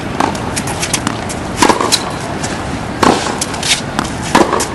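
Tennis rally on a hard court: a tennis ball struck by a racket and bouncing on the court, heard as a string of sharp pops and thuds every second or so, some in quick pairs, over a steady background hiss.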